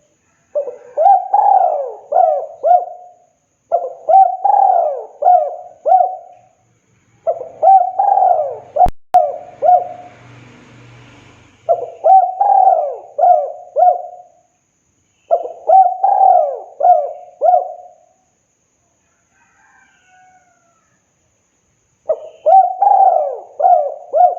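Spotted dove (tekukur) singing its cooing song: six phrases of several quick coos each, every phrase a couple of seconds long, separated by short pauses and a longer one near the end. A sharp click sounds about nine seconds in.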